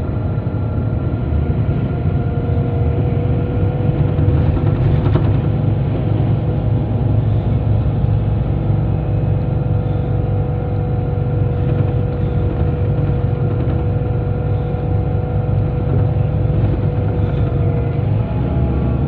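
Cabin sound of a Scania K94IB coach under way: the diesel engine drones steadily over a low road rumble, with a steady whine that drops away near the end.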